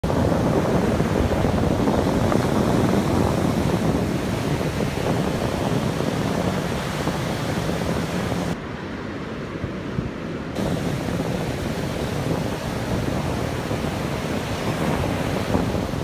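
Ocean surf breaking and washing up a sandy beach: a steady rush of water, with wind buffeting the microphone. The higher hiss dulls for a couple of seconds past the middle.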